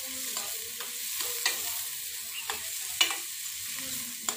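Onions sizzling as they fry in a steel pan while a steel ladle stirs and scrapes through them, with three sharp clinks of the ladle against the pan.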